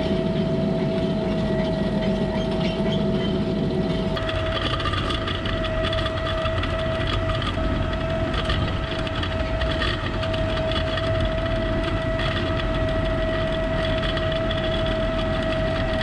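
Tractor and towed field sprayer running steadily across the field, a continuous machine drone with a steady high whine over it; a second, higher whine joins about four seconds in.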